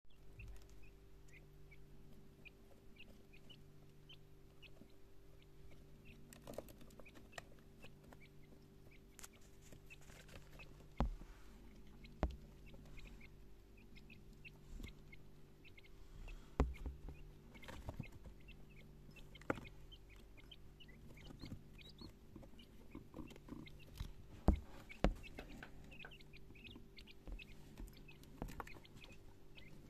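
Quail chicks peeping softly, with short high chirps scattered throughout, while they peck at feed: sharp taps and clicks of beaks against the feeders and drinker. A steady low hum runs underneath.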